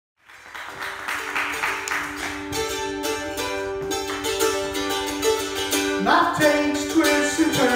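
Plucked acoustic string instrument playing held, ringing notes, with a sliding pitch that rises about six seconds in and falls again near the end.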